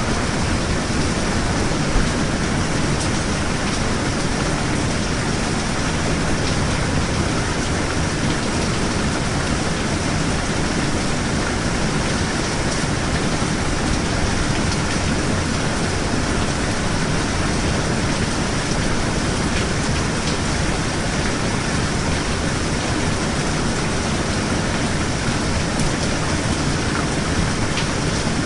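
Steady heavy rain: an even, unbroken hiss of rainfall.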